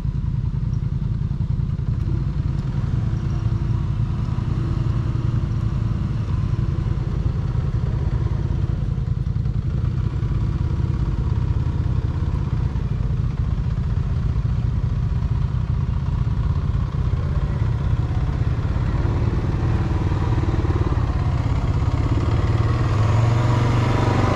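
ATV engine running steadily at low revs, revving up near the end.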